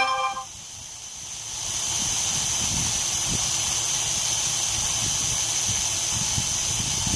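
Small quadcopter drone's motors and propellers spinning with a steady high whine and hiss, building up over the first second or two, with wind buffeting the microphone. A short electronic beep ends right at the start.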